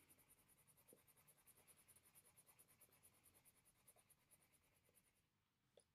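Faint, rapid back-and-forth scratching of a yellow colored pencil shading a small square on paper. The strokes stop about five seconds in.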